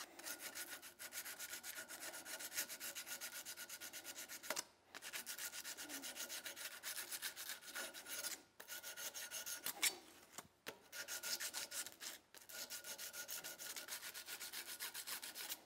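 Emery paper wrapped over a small file, rubbed back and forth in quick, even strokes on the steel of a Ruger single-action revolver frame to flatten it and take out machine tool marks. The strokes come in five runs separated by short pauses.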